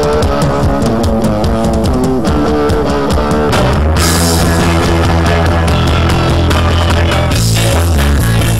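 Background rock music with guitar and drums, the bass coming in heavier about four seconds in.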